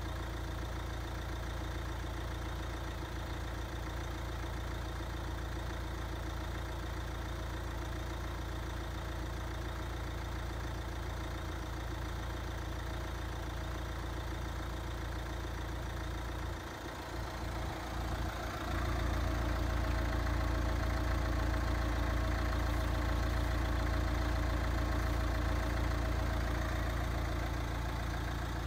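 Nissan Qashqai J11 engine idling steadily. A little past halfway it briefly wavers, then runs on a few decibels louder.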